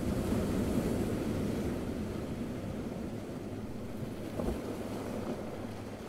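Small waves washing onto a beach: a wave swells in over the first second and eases off over the next few seconds. A brief thump comes about four and a half seconds in.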